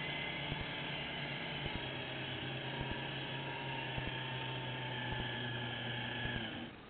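Electric drive motor of a radio-controlled Gato submarine model running with a steady hum and whir, picked up through the hull by the camera mounted on it, with scattered light ticks. The motor cuts out near the end.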